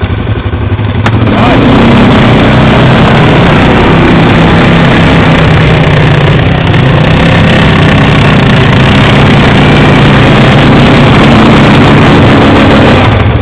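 Quad bike (ATV) engine revving hard, then held at high revs under load while driving through deep mud. It is loud and close, coming up sharply about a second in and holding steady until just before the end.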